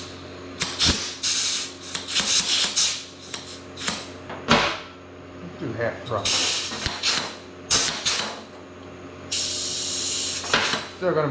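Compressed air hissing in short bursts, each about a second long, as a momentary pneumatic valve is worked to cycle a small air cylinder. Metallic clicks from the fittings and cylinder come between the bursts, with one sharp knock about four and a half seconds in.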